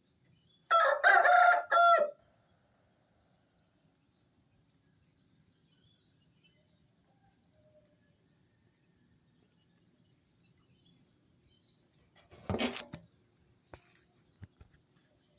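Aseel rooster crowing once, loud and about a second and a half long, near the start. Crickets chirp steadily in a fast high pulse throughout, and a brief noisy burst comes about twelve seconds in.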